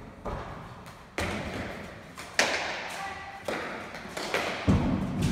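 A hard pelota ball struck by bare hands and rebounding off the walls and floor of an indoor trinquet court: about six sharp smacks a second or so apart, each ringing on in the hall's echo, the loudest about two and a half seconds in.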